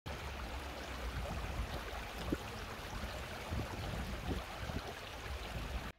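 Shallow stream water flowing around the feet, a steady rushing that cuts off suddenly near the end.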